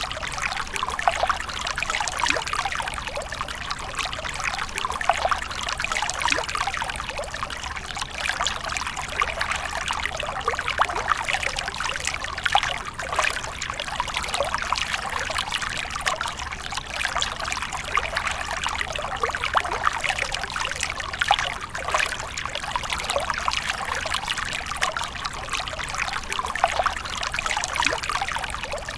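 Water splashing and trickling steadily, a continuous patter of many small splashes with no pause.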